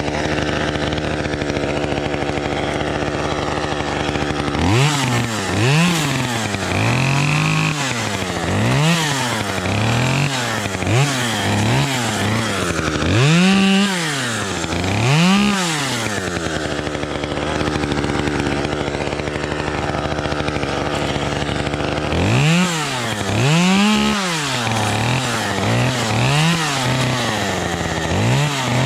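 Small two-stroke chainsaw idling, then revved in a string of quick throttle blips, each rising and falling over about a second. It drops back to a steady idle for several seconds midway, then blips again.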